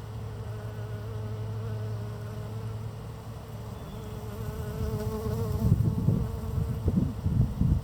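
A bee buzzing close by, its hum wavering a little in pitch and fading out about two-thirds of the way through. From about halfway, loud irregular low rumbles come in and become the loudest sound near the end.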